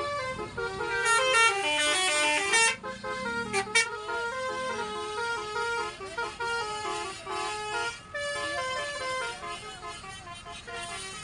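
A bus's Basuri-type 'telolet' musical horn playing a tune in a series of stepped, held notes, loudest and brightest about one to three seconds in.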